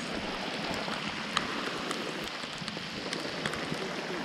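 Steady rain falling, an even patter with individual drops ticking now and then.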